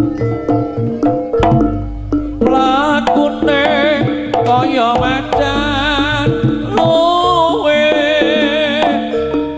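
Live East Javanese jaranan-style gamelan music: hand drums beat out a brisk rhythm over held gong and metallophone tones. About two and a half seconds in, a high wavering melody joins above them.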